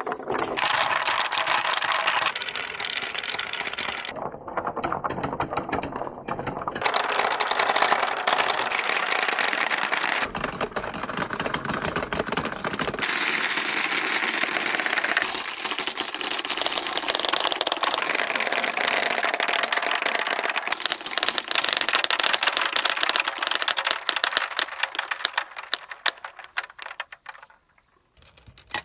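Many balls and marbles rolling and clacking against each other down a water-filled bamboo trough and transparent pipes: a dense, rapid clatter that changes abruptly several times and fades out near the end.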